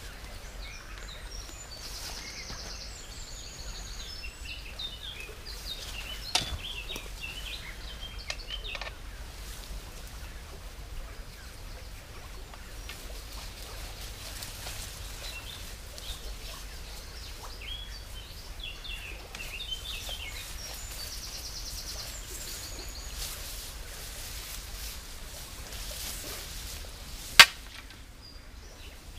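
Wild birds singing and calling in the countryside: scattered high chirps and short, fast trills, over a steady low background of outdoor noise. A single sharp click sounds near the end.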